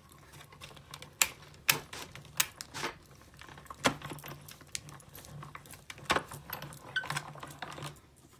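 Sharp clacks and taps of plastic cutting plates and a metal cutting die being handled and loaded into a manual die-cut machine, a handful of separate knocks over a faint low hum.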